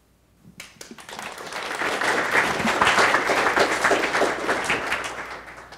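Audience applauding: a few scattered claps about half a second in build into full applause, which then fades out near the end.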